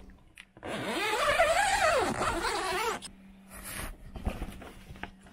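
Grow tent zipper pulled open in one long rasp from about one to three seconds in, its pitch rising and then falling as the pull speeds up and slows. A few light knocks follow.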